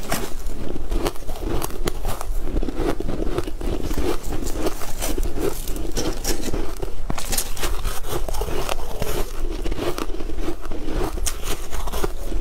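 Close-up crunchy chewing and the crackle of a crumbly, granular-crusted purple bar being broken off a tray by hand, with many quick crackles and clicks throughout.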